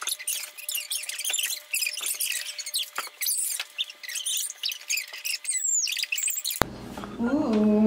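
Sped-up kitchen audio: quick high-pitched squeaky chatter and clicking, like chipmunk voices and utensil clatter. It cuts off suddenly about a second before the end, when normal-pitched sound with a voice returns.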